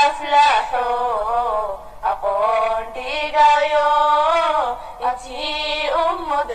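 A voice singing a song melody in drawn-out phrases, with held, wavering notes and short breaks between phrases.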